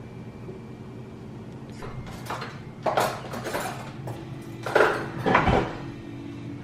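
Dishes and cutlery clinking and clattering, half a dozen separate knocks over a low steady hum.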